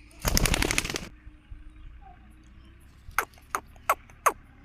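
Pet parrot calling: a loud, harsh, rapidly pulsed squawk lasting about a second, then four quick downward-sweeping calls in a row near the end.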